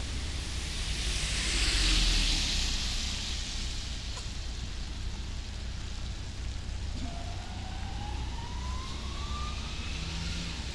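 A car passing on the rain-soaked road, its tyres hissing through the water, loudest about two seconds in, over steady rain and a low city rumble. Near the end a faint whine rises steadily in pitch for about three seconds.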